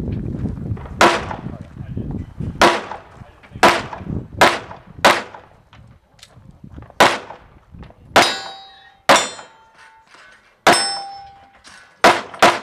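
Gunshots fired one after another at an uneven pace, about one a second. Twice a shot is followed by the ring of a struck steel target, lasting about a second.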